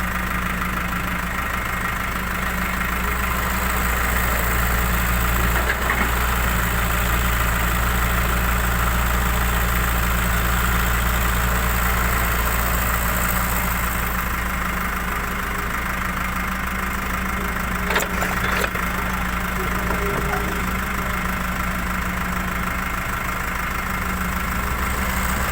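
Diesel engine idling steadily with an even, unchanging note. Two sharp knocks come about eighteen seconds in.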